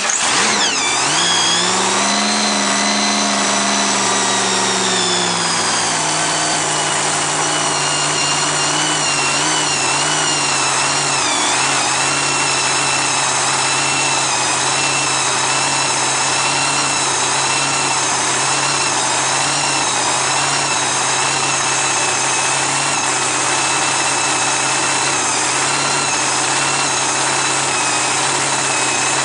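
Top Comp drag racing car's engine, just started, running at a high idle. The revs dip sharply and pick up again in the first second, ease down to a lower, steady idle about six seconds in, and dip briefly once more about twelve seconds in.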